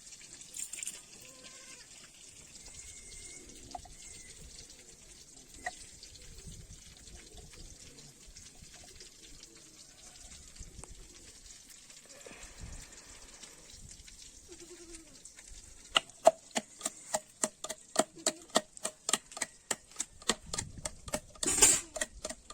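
Quiet background with a few faint calls, then about two-thirds in a steady run of quick kitchen knocks begins, about three a second, each with a slight metallic ring, as of cooking utensils at work.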